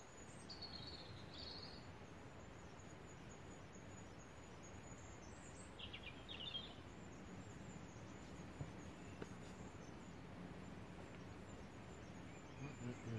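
Quiet woodland ambience: a faint steady background hiss with a few short, high bird chirps, one about half a second in and another around six seconds in.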